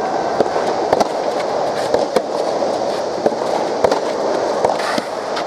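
Steady crowd hubbub from spectators, broken by irregular sharp knocks and pops about once or twice a second.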